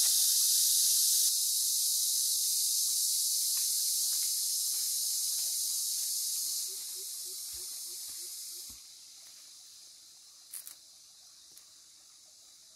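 A steady, high-pitched hiss that drops in level in steps and fades out about nine seconds in, followed by a couple of faint clicks near the end.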